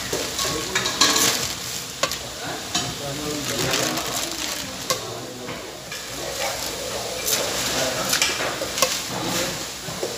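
Pancit canton noodles being stir-fried in a large aluminium wok: a metal spatula scrapes and tosses through the noodles, knocking against the pan in frequent short clicks, over a steady sizzle of frying.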